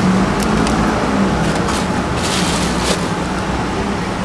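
Steady low hum and general background noise, with a stretch of brief crackling from about a second and a half in as gloved hands press shredded daikon into a thin clear plastic clamshell tray.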